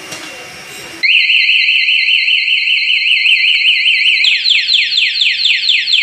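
Motorcycle anti-theft alarm siren (Belta) going off while the alarm is armed. It starts about a second in as a loud, fast up-and-down electronic warble. Partway through it switches to rapid falling chirps, then cuts off suddenly.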